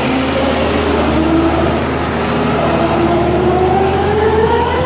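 Excavator's diesel engine running loudly under load, its pitch rising steadily from about two seconds in as it revs up.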